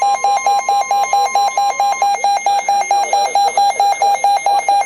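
Weather alert receiver's alarm sounding rapid, evenly spaced beeps, with the steady 1050 Hz NOAA Weather Radio warning alarm tone under it until about two seconds in, signalling an incoming warning.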